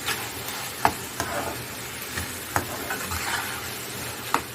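A spoon stirring a chicken, tomato and carrot masala in a frying pan as it sizzles steadily, with about five sharp clinks of the spoon against the pan.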